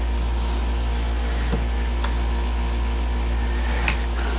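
A steady low hum, with a couple of faint light taps.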